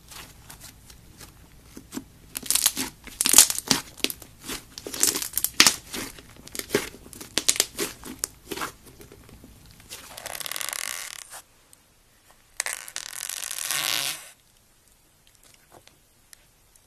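Thick, soft slime being stretched, folded and squeezed by hand, giving a quick run of sharp clicks and pops. Later come two steadier crackling sounds of about a second and a half each, then only faint crackles as a finger presses into foam-bead slime.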